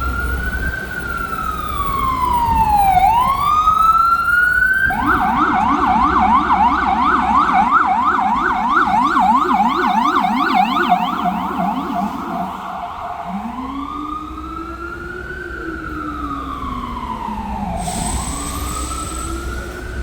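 Emergency vehicle siren: a slow rising and falling wail, switching about five seconds in to a rapid yelp of about three sweeps a second for several seconds, then back to the slow wail, over a low traffic rumble.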